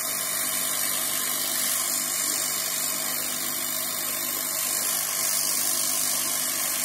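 Hot air rework station blower running with a steady hiss, heating liquid resin flux on a motherboard to reflow dry solder joints.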